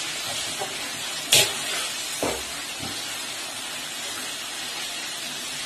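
Chicken pieces deep-frying in hot oil, a steady sizzling hiss, as a wire spider skimmer stirs them; the skimmer clinks sharply against the metal pot about a second in, with two softer knocks after.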